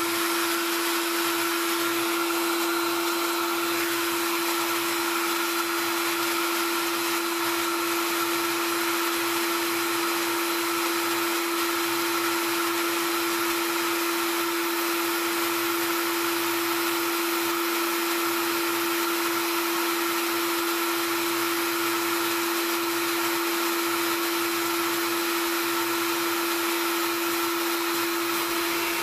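Onefinity CNC's router running steadily at 18,000 rpm, a loud unchanging whine, with the bit held above the workpiece and not yet cutting.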